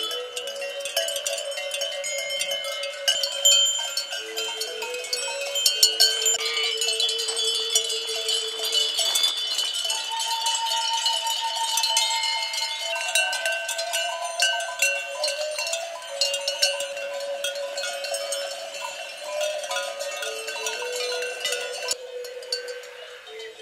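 Many sheep bells of different pitches clanking and ringing together, overlapping without a rhythm, as a flock grazes and moves.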